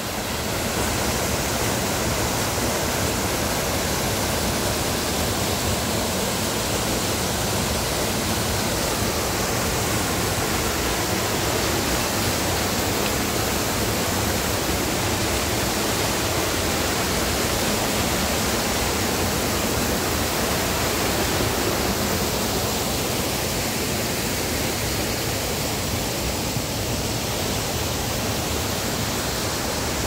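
Waterfall and cascading stream water rushing steadily, with no change in level.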